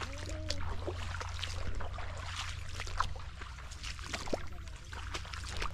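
Irregular splashing and swishing of someone wading through shallow marsh water and brushing past reeds, over a steady low rumble.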